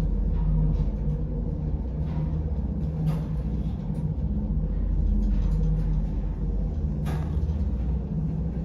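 Steady low hum and rumble inside a moving passenger lift car, with a couple of faint clicks.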